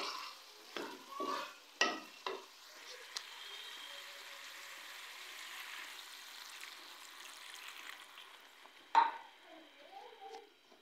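A wooden spoon knocks and scrapes a few times in a pan of chicken and tomato masala. Then comes a steady sizzle as the water just added hits the hot oil and masala. A couple more spoon knocks come near the end.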